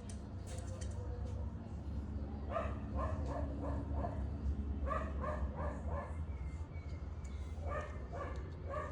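A dog barking in three quick runs of short, rapid barks, over a steady low hum.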